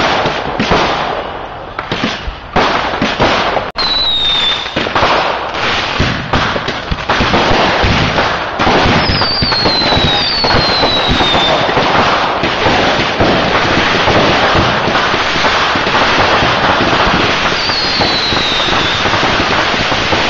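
Fireworks display going off: a quick run of separate bangs, then from about eight seconds in a dense, continuous crackle. Short whistles falling in pitch cut through it several times.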